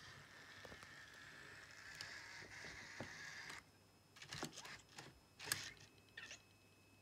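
Anki Vector robot's small tread motors whirring faintly as it reverses onto its charging dock, stopping about three and a half seconds in. A few short clicks and knocks follow as the robot settles on the dock.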